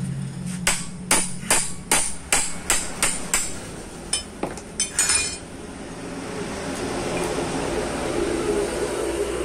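A hammer strikes a spanner about a dozen times, two or three blows a second, with a metallic ring, to break loose the clutch nut on a Honda Vario 125's CVT driven pulley. After the blows stop, a steady low rumble builds.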